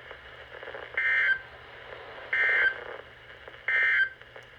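Emergency Alert System end-of-message signal on a NOAA Weather Radio broadcast: three short bursts of warbling digital data tones, a little over a second apart, over a faint radio hiss.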